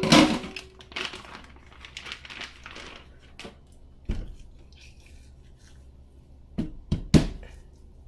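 Plastic bag crinkling loudly as it is pulled open and a frozen fish fillet is taken out of it, followed by a few sharp knocks, one about four seconds in and three close together near the end.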